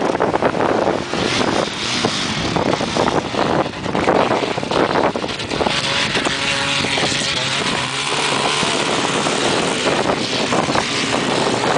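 Wind noise on the microphone over off-road vehicles driving on sand. About six seconds in, a quad bike's engine note is heard steadily for a couple of seconds.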